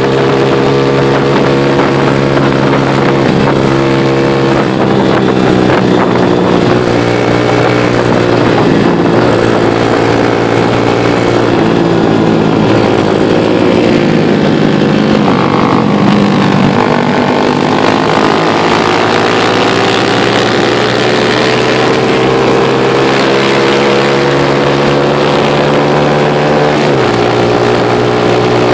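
Motorcycle engine heard from on board while riding, running steadily; its pitch sinks through the middle and climbs back as the revs drop and pick up again, and shifts abruptly near the end. Wind noise over the microphone runs underneath.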